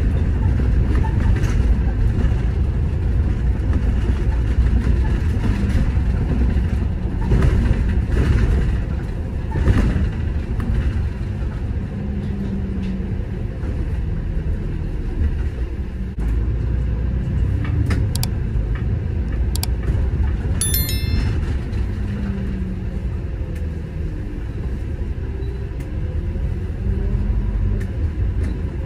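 City bus in motion: a steady low rumble of engine and road that swells and eases with the traffic. Two-thirds of the way through there is a brief high-pitched tone with a few clicks just before it.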